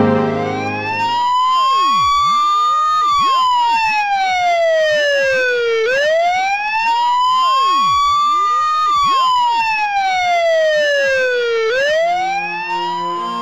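Wailing siren, its pitch rising slowly for about three seconds and then falling for about three, twice over, and starting to rise again near the end as music comes back in.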